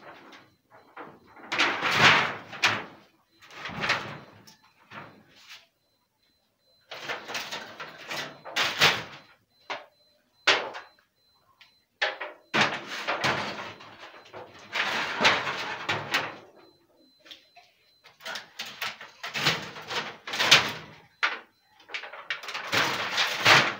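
Rusty corrugated iron roofing sheets being lifted and laid over a fish-drying rack: metal sheets scraping and clattering in irregular spells, with sharp knocks among them.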